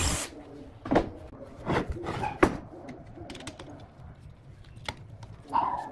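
A power drill's whir cuts off right at the start. It is followed by four knocks and a few light clicks of wood and tools being handled on a workbench, the last knock, about two and a half seconds in, the loudest.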